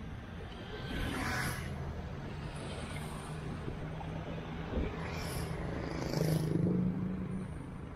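Road traffic engine hum, steady and growing louder around six seconds in, over a haze of wind noise from riding along the road.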